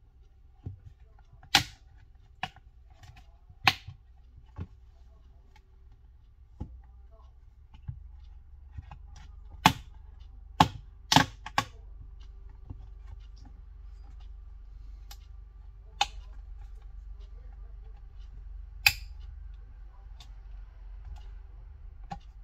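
Sharp plastic clicks and snaps, about a dozen at uneven intervals with a quick cluster of four in the middle, as a plastic opening pick is worked around the edge of a Samsung Galaxy Tab S2's back cover to release it. A faint steady hum lies underneath.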